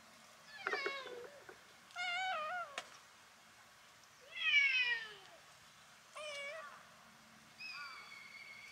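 Cat meowing five times in short pitched calls. The third meow, about halfway through, is the loudest and slides down in pitch, and the last one near the end is long and drawn out.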